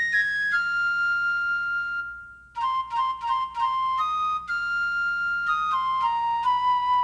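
Background music: a solo flute playing a slow melody, one note at a time. A long held note is followed by a brief break a little after two seconds in, then a run of shorter notes that step downward.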